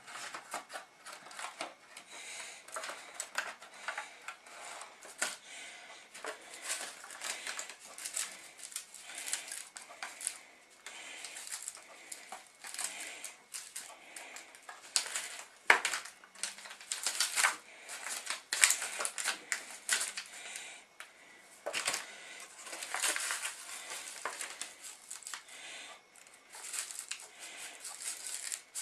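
Thin aluminium foil food trays crinkling and clattering as they are handled, with a clear plastic tub knocking against them. A dense run of small crackles and clicks, with a few louder knocks in the second half.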